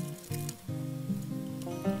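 Background music of plucked acoustic guitar.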